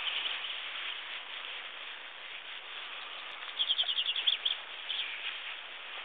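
Male chaffinch singing one song phrase about three and a half seconds in: a quick run of repeated high notes ending in a short flourish, over a steady hiss.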